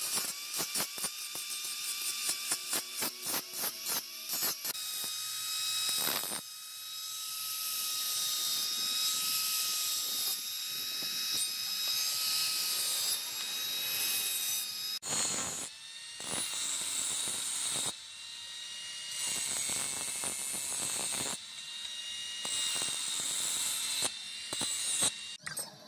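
Electric angle grinder with an abrasive disc grinding the steel of a leaf-spring cleaver blade. For the first few seconds the sound stutters in quick, even pulses, then settles into a steady high whine with a few short breaks in the second half.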